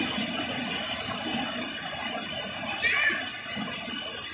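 Waterfall and river water rushing steadily into a pool, with splashing from people wading through it.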